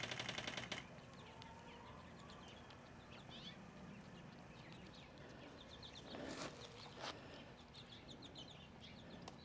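Quiet outdoor background with faint chirping of small songbirds. A fast buzzing stops abruptly within the first second, and two brief rustles come about six and seven seconds in.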